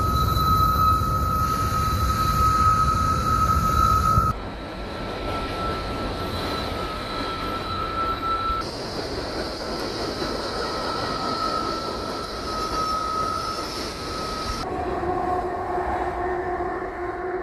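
Freight train cars rolling slowly past, with a steady high-pitched wheel squeal over the rumble of the wheels. The heavy low rumble drops off about four seconds in, and near the end the squeal shifts to a lower pitch.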